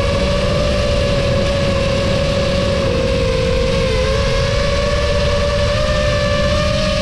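Brushless motors and propellers of a 6S FPV quadcopter, heard from its onboard camera: a steady high whine with several overtones over a low wind rumble, dipping slightly in pitch about four seconds in.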